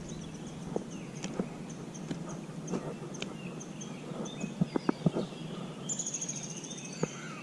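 Outdoor ambience with birds chirping: faint, high chirps repeating, and a short buzzy trill about six seconds in. A few light clicks and taps come in a cluster a little before the five-second mark.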